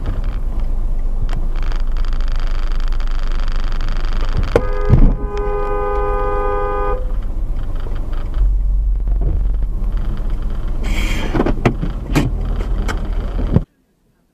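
Car heard from inside the cabin, its engine and road rumble steady, with a loud thump about five seconds in followed by a car horn blaring for about two seconds. More knocks come around eleven seconds in, and the sound cuts off abruptly near the end.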